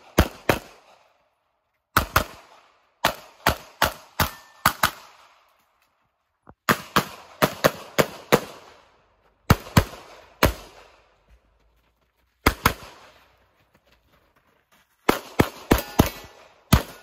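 Semi-automatic pistol fired rapidly in quick pairs and short strings of shots, with pauses of a second or two between groups as the shooter moves between positions.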